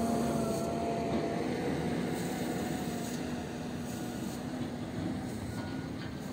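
Steady drone of a heavy diesel engine, a low hum with a higher tone that wavers slightly, growing gradually fainter.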